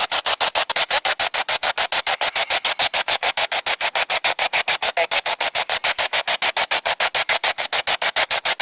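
Radio static chopped into rapid even pulses, about ten a second, the sweeping hiss of a ghost box scanning through stations during an EVP session.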